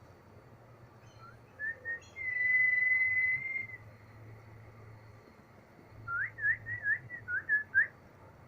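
High, pure whistled tones: two short chirps, then one steady whistle held for about a second and a half, and later a quick run of short rising chirps.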